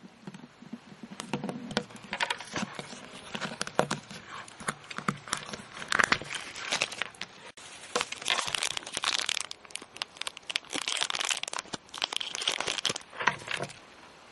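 Thin clear plastic wrapping crinkling and rustling as hands handle a wrapped capsule-toy figure, in a run of quick crackles that stops near the end.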